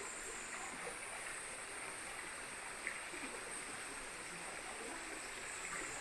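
Steady rushing of a mountain stream, with a faint steady high-pitched whine above it.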